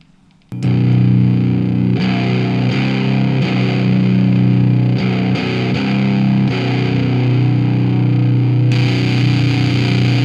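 Electric guitar played through a ProCo RAT distortion pedal and a breadboarded transistor boost circuit: heavily distorted held notes that start suddenly about half a second in and change several times. The tone turns brighter about two-thirds of the way through.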